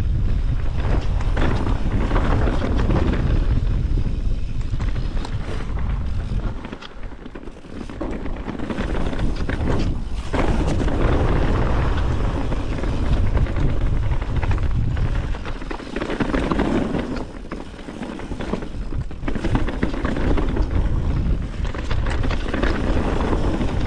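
Wind rumbling over the microphone of a mountain biker's point-of-view camera on a descent, mixed with the mountain bike's tyres rolling over dirt singletrack. The noise rises and falls with speed and eases briefly twice.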